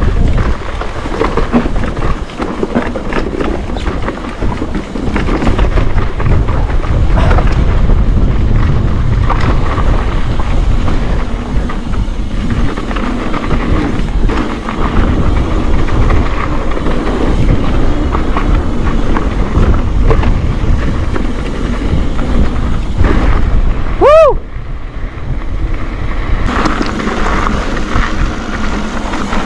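Mountain bike descending a rough trail: wind buffeting the helmet-camera microphone over tyres crunching on dirt and the bike rattling over bumps. About three-quarters of the way through, a short tone rises and falls, and the noise eases for a moment.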